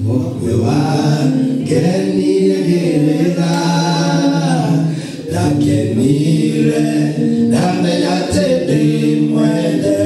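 Men singing a cappella into handheld microphones: unaccompanied voices holding and moving between sung notes, with a brief pause about five seconds in.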